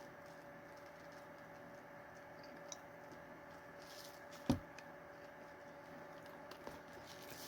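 Quiet handling and eating noises from a fast-food hamburger being tried: faint rustles and small ticks over a steady room hum, with one sharp knock about four and a half seconds in.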